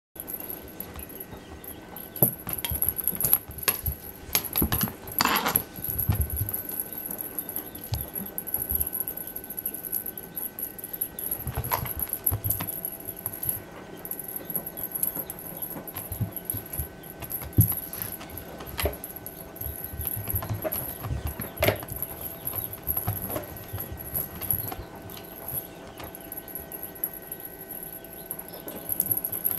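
Norwegian Forest Cat kitten pouncing and batting at a feather wand toy on carpet: irregular soft thumps, paw patter and scuffling, with a few sharper knocks.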